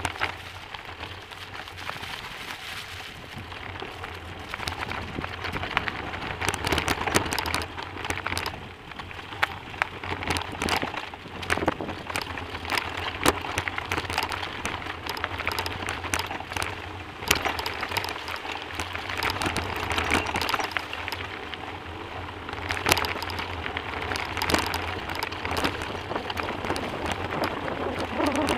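Bicycle tyres rolling over a gravel track, a steady crunching hiss dotted with sharp clicks and rattles as stones are kicked up and the bike jolts over bumps, over a steady low rumble.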